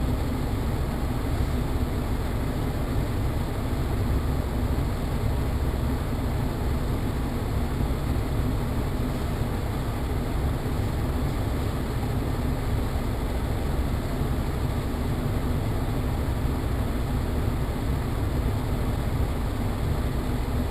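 Steady road and engine noise inside a moving car's cabin, with a constant low hum; the driver noticed this hum after knocking, thought possibly to come from a wheel.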